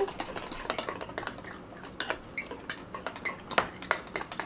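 Spoons stirring slime mixture in glass bowls, with irregular clinks and scrapes against the glass.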